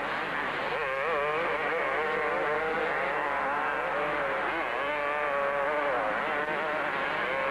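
Several two-stroke motocross bikes racing through a corner, their engine notes rising and falling and overlapping as the riders rev out and back off.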